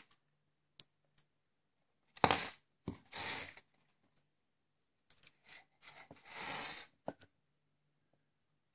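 Handling noise: a few light clicks and several short rustling, scraping sounds, each about half a second long, as small electronics and their cables are picked up and moved on a wooden table.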